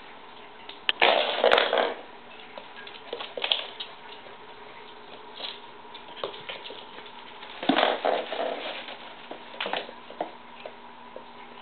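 Siberian husky puppy scrabbling and pattering on a hard floor as it plays, with scattered claw clicks and two louder bursts of scuffling. A faint steady hum underlies it.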